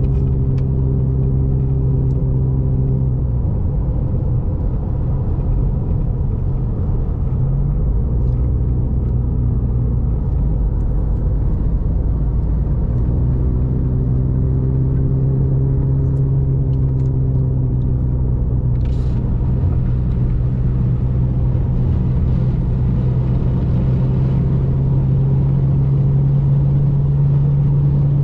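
Car driving, heard from inside the cabin: a steady road and engine drone with a low hum that weakens a few seconds in and comes back strongly about halfway through.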